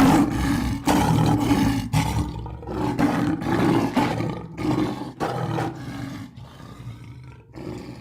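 Lion roaring: a series of deep, grunting roars, one after another, that grow quieter and trail off near the end.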